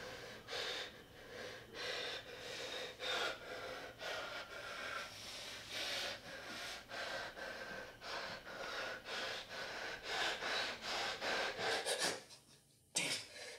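A young man breathing fast and heavily, with sharp gasping breaths about once a second. The breathing breaks off into silence about twelve seconds in, and a sharp noisy sound follows near the end.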